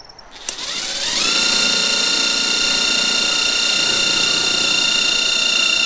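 Cordless impact driver spinning up with a rising whine over about a second, then running at a steady pitch as the drill point of a Tex self-drilling screw bores through the steel beneath the wood.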